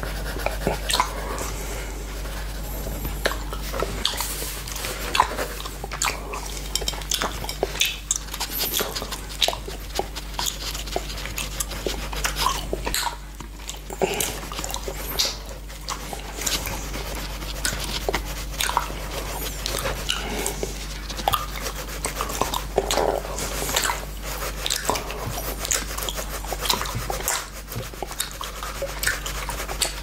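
Close-up wet tongue licking and mouth sounds on a clear glass plate, with many small sharp crackles from Frizzy Pazzy popping candy, and a coloured pencil scratching on paper.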